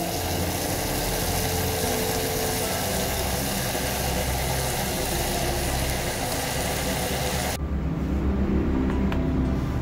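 Steady hiss of a gas camping stove burning under a mess tin of cooking rice, cutting off abruptly about seven and a half seconds in.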